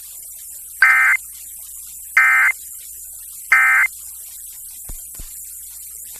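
Emergency Alert System end-of-message (EOM) code over FM radio: three short, identical bursts of digital data tones, evenly spaced, which signal that the alert is over.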